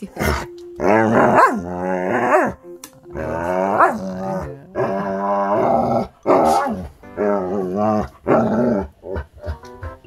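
Retriever complaining in a string of drawn-out, wavering vocal grumbles with short breaks between them, the protest of a dog being teased with air blown at its nose.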